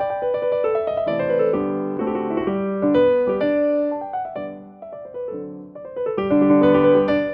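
Background piano music: a gentle melody with descending runs and chords.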